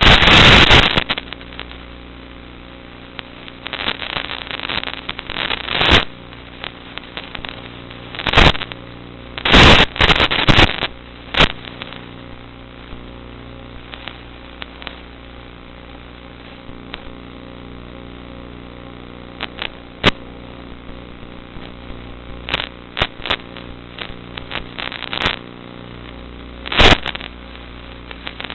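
Zagi flying wing's electric motor and propeller running at a steady pitch, heard from on board, broken by loud crackling bursts about ten times.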